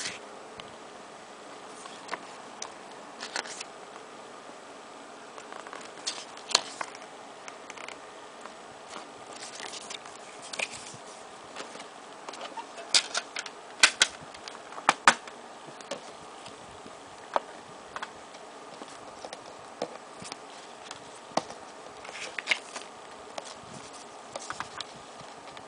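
Scattered clicks, taps and short rustles of a CD album and its packaging being handled, over a steady low hiss. The sharpest clicks cluster about halfway through.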